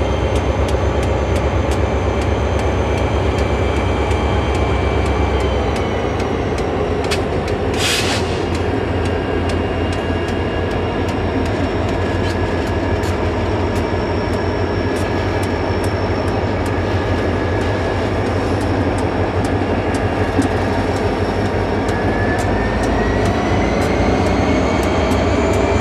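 CP Rail diesel freight locomotives pulling past under power: a steady engine drone with a high turbocharger whine that rises near the end, like a jet engine. A short hiss comes about 8 seconds in.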